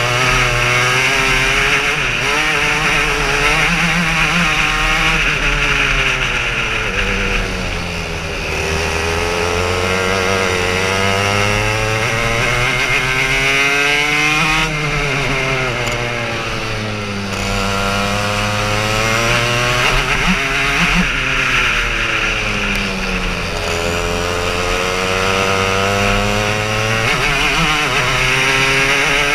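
Racing kart engine heard from on board, running hard under full throttle. Its pitch climbs steadily as the kart accelerates, then drops sharply each time it slows for a corner, about six times over.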